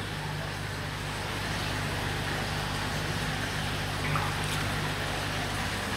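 Steady rush of water with a low, steady hum from a koi fry tank's pump and filtration, water running continuously into the tank.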